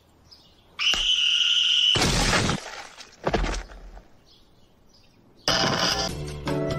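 Cartoon sound effects: a steady high-pitched tone lasting about a second, cut off by a loud crash of breaking, then a second shorter crash. Music with a beat starts near the end.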